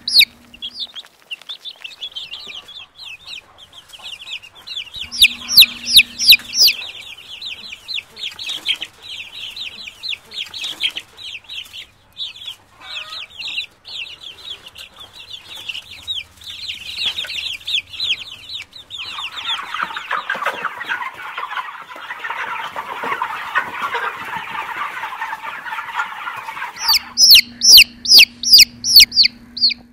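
Domestic chicks peeping: a stream of rapid, high-pitched peeps, loudest in bursts about 5 seconds in and again near the end. From about 19 to 27 seconds a denser, lower chatter of many birds fills in beneath them.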